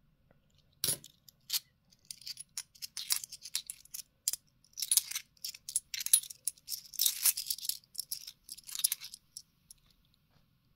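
Bimetallic 2-euro coins clinking and sliding against each other in the hand. One sharp click comes about a second in, then a quick run of clinks and scrapes, some with a brief high ring, until just before the end.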